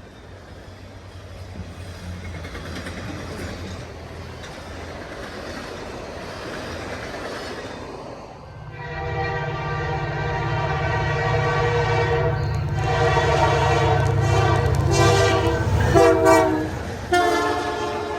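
A diesel locomotive approaching, its rumble growing. About nine seconds in, its multi-tone air horn sounds the grade-crossing pattern, long, long, short, long, over the running engine.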